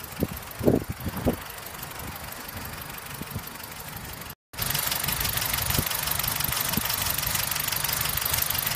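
Freshly rebuilt BMW E46 engine idling steadily on its first run, with a few thumps about a second in. The sound drops out briefly a little past the middle and comes back louder.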